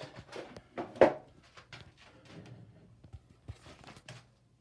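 A series of short knocks and clicks from fittings being handled, the loudest knock about a second in.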